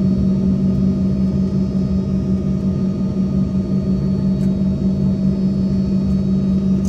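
Steady drone of an airliner's engines and air system heard inside the passenger cabin while the plane is on the ground, with a constant low hum tone over the noise.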